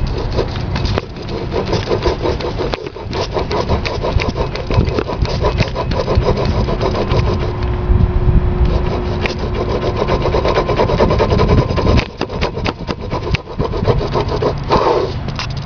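Car air-conditioning compressor pulley turning with the serpentine belt off, grinding from inside. The owner takes this for the source of a rattle from the pulley/clutch.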